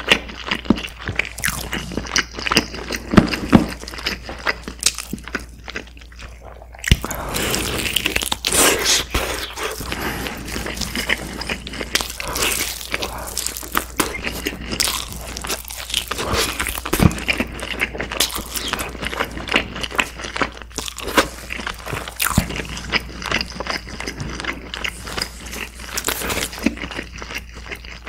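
Close-miked eating sounds of a person biting into and chewing a glazed roasted chicken drumstick. The bites and chews come as dense, irregular clicks and crackles, growing louder about seven seconds in.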